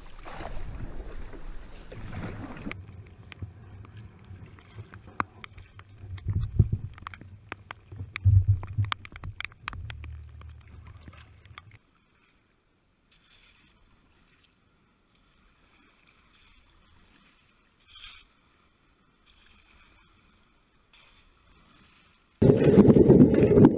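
Kayak being paddled: paddle strokes in the water and sharp knocks of the paddle against the hull, with two heavier thumps in the middle. Then about ten seconds of near silence. Near the end a sudden loud, steady noise starts.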